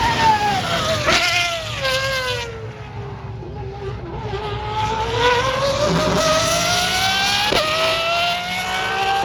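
Pagani Huayra R Evo's V12 engine on track: its note drops as the car slows, with sharp blips about one and two seconds in, then climbs under hard acceleration. A quick gear change near the end drops the pitch before it climbs again.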